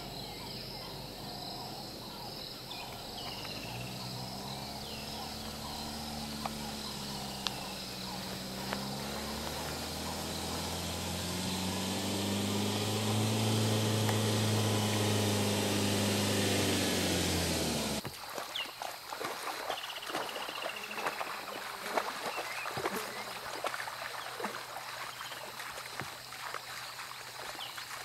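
Insects chirping, then a game-drive vehicle's engine running low, its pitch slowly rising and falling, loudest just before it stops abruptly about two-thirds of the way through. Then water splashing and trickling as a lion wades through a shallow river.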